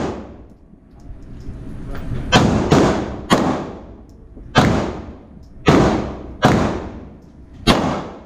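Seven gunshots fired at an indoor shooting range, each followed by a short echo. Three come in quick succession about two seconds in, then four more come roughly a second apart.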